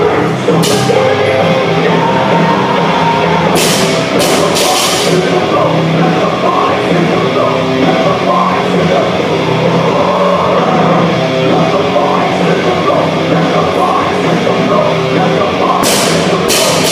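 Loud heavy rock music with a drum kit, with a few sharp crashes about three and a half seconds in and again near the end.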